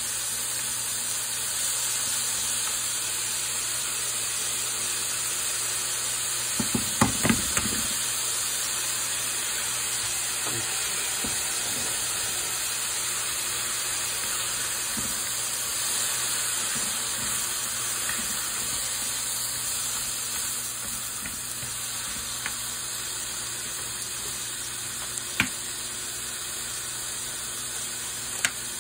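Meat and vegetable stir-fry sizzling steadily in a frying pan as it is stirred with chopsticks, an egg being worked through it. A short cluster of knocks comes about seven seconds in, and single sharp clicks come near the end.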